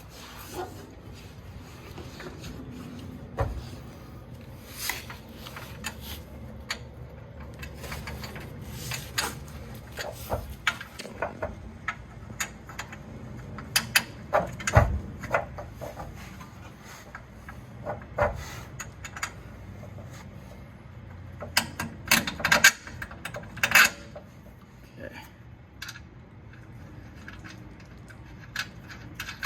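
Irregular metallic clinks, taps and knocks of hand tools and a bolt against the suspension as the lower bolt of a new rear strut is worked through its mount, with a quick run of clinks about three-quarters of the way through.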